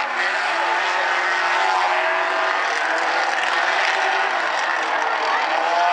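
A pack of compact four-cylinder race cars running together, several engine notes overlapping with some rising in pitch as they accelerate.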